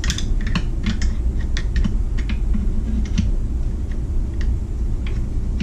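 Irregular small clicks and taps of a screwdriver and the metal engine against the plastic case of a McCulloch Eager Beaver chainsaw as the engine is worked into place, over a steady low hum.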